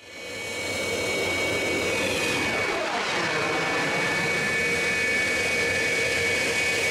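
Military jet aircraft engine: a steady rushing noise with a high whine that fades in over the first second, and a pitch that falls and sweeps near the middle.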